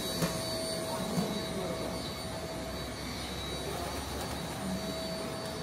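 Steady city street background noise: an even wash of sound with a faint constant hum running through it.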